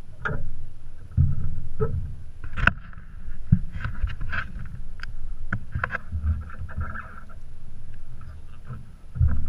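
Water lapping and slapping against the hull of a small flats boat, with wind gusting on the microphone. Scattered sharp knocks and clicks come from handling on the deck.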